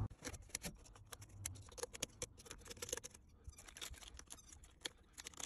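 Faint, irregular small clicks and scrapes of hand tools and parts being handled at the engine's coil packs and spark plugs.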